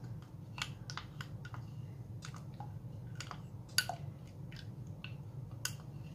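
Light clicks and taps of glassware as potato juice is poured from a drinking glass into a square glass dish, the sharpest tap about four seconds in, over a steady low hum.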